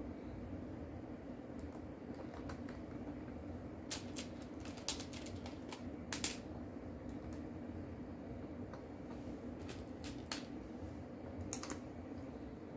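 Plastic Lego bricks and small pieces clicking as they are handled and pressed together, in scattered sharp clicks with a cluster about four to six seconds in and more near the end, over a steady low hum.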